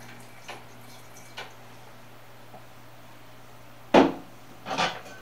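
A bottle set down on a kitchen countertop: a couple of faint clicks, then a sharp knock about four seconds in and a second, softer one just after.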